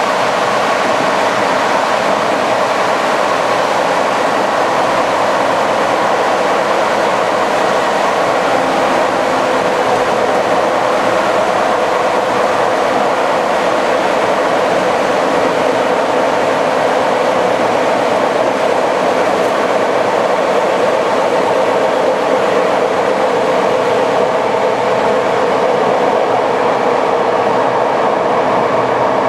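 TLK passenger train running along the line: a loud, steady rumble of wheels on rail with no change in pace.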